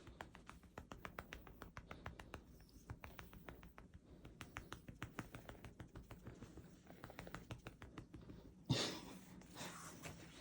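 Rapid, irregular light tapping or clicking, several taps a second, with a louder brief rustle or thump about nine seconds in.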